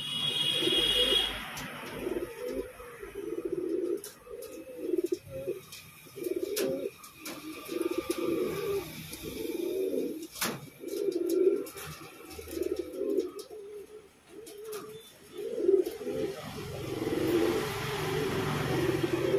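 Domestic pigeon cooing over and over, low warbling coos about one to two seconds apart, with a few sharp clicks in between.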